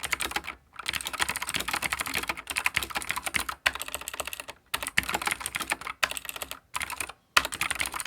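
Fast typing on a Keychron K4 v2 mechanical keyboard with clicky blue switches: dense runs of sharp key clicks, broken by a few short pauses.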